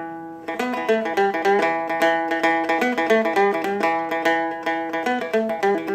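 Seagull Merlin, a four-string fretted dulcimer-style instrument, capoed and flatpicked: a quick run of picked melody notes ringing over its sustained drone strings.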